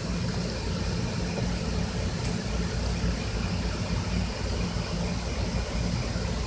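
Steady low mechanical hum of running machinery or ventilation, with a faint click about two seconds in.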